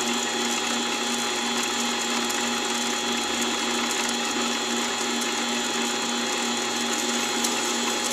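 Mini-lathe running steadily under light load as a 0.5 mm drill bit cuts into a turning brass screw: the motor and gear train give an even mechanical whine with several held tones.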